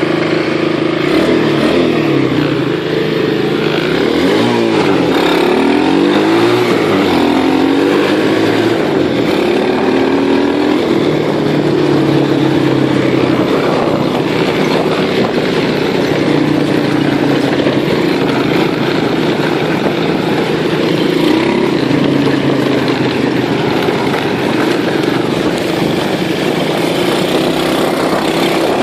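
Small motorbike-type engine running, its revs rising and falling several times in the first ten seconds, then holding steady with a brief rev about three quarters of the way through.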